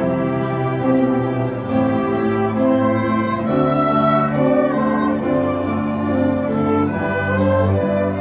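Small string ensemble of violins and cellos playing together in rehearsal. Several parts sustain long bowed notes that change about every second, with a low cello line beneath.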